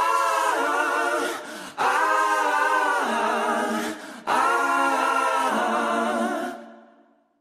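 Soundtrack music of singing in long held notes, in three sustained phrases, fading out near the end.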